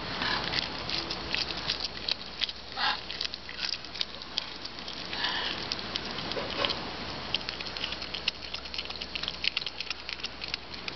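Tayra chewing on a chicken leg: a dense, irregular run of small clicks and cracks.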